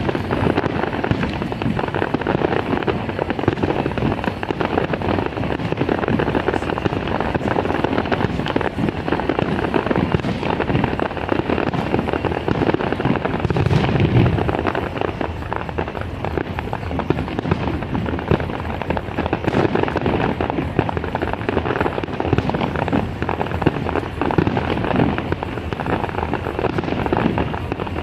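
Fireworks display going off in a dense, continuous run of bangs and crackles, with a heavier low boom about halfway through.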